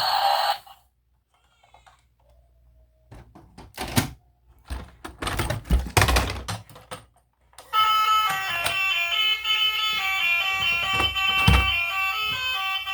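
Plastic toy vehicles clicking and knocking as they are handled, then a bright electronic beeping tune that starts about eight seconds in.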